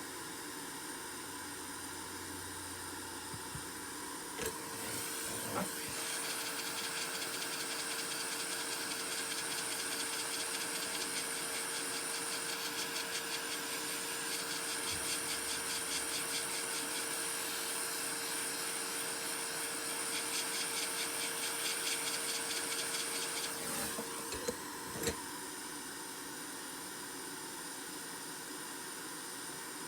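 A small electric motor switched on with a click about four seconds in, running with a steady hum and hiss for about twenty seconds, then clicked off.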